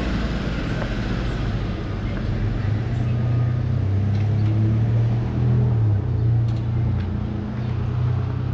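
Truck engines at a street intersection: a low, steady engine hum from a box truck and a passing pickup, with street traffic noise.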